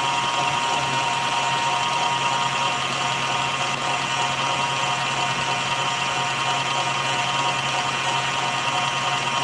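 Stand mixer motor running steadily, its wire whisk beating egg whites in a stainless-steel bowl into meringue that is close to stiff peaks.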